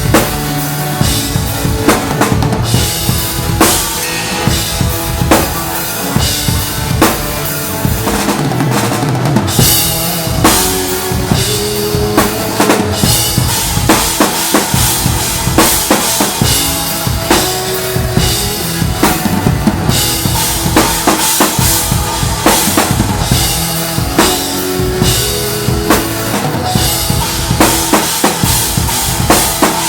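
Drum kit played live with a band: a driving bass-drum and snare groove with frequent cymbal hits and fills, over the band's sustained pitched instruments.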